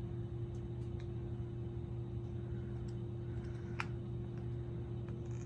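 Casablanca Venus ceiling fan motor running with a steady hum and a faint hiss. The owner likens the noise to a bearing hiss, but it stops as soon as the fan motor is switched off, so he puts it down to motor noise. A single light click about four seconds in.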